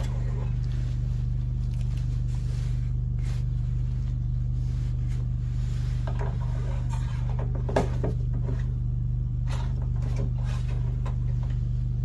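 A steady low hum, with a few faint scrapes and knocks as the snow thrower's dipstick is drawn out of its plastic oil fill tube and handled.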